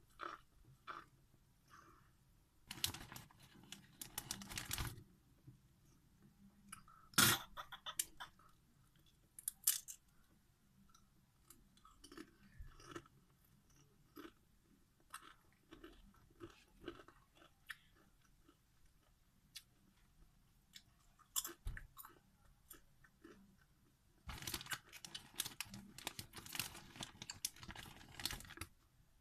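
Doritos tortilla chips being chewed with crunching. The loudest crunching spells come about three seconds in, around seven seconds in, and through the last five seconds, with quieter chewing and small crackles between them.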